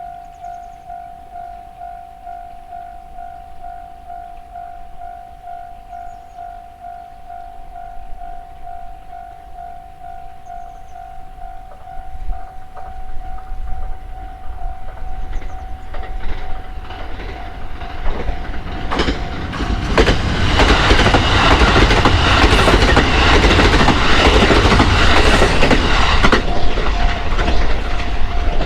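Japanese railroad-crossing alarm ringing its steady "kan-kan", about two strokes a second. From about twelve seconds in, a train approaches and passes loudly over the crossing for about six seconds, drowning out the alarm, which is heard again near the end.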